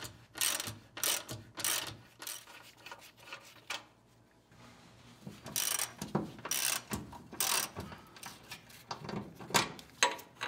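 Hand socket ratchet clicking in repeated strokes as it backs out the crossmember-to-frame bolts, with a short pause about four seconds in.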